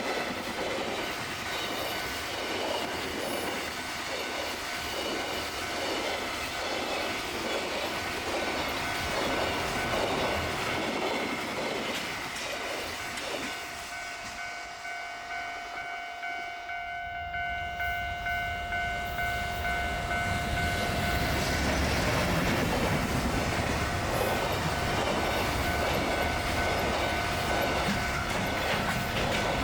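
Freight train passing over the rails, its wagons clacking in a regular rhythm. About halfway through, a steady high tone sounds for several seconds, and then a louder, deeper rumble builds.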